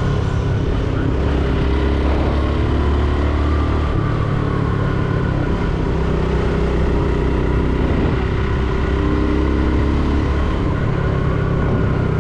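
Motorcycle engine running steadily under way, with a steady rush of wind and road noise; the engine note shifts a couple of times.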